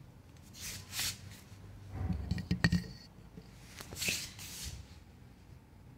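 Light handling noise from an audio cable with RCA plugs being moved about: soft rustles and swishes, with a cluster of small clicks and knocks about two to three seconds in.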